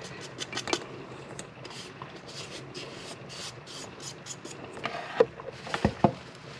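Short, dry scraping strokes as caked, powdered dog food is scraped out of a coffee grinder's cup, with a few sharper knocks near the end.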